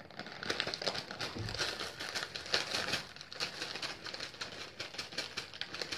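Plastic packaging crinkling and crackling as it is handled, a dense run of small crackles.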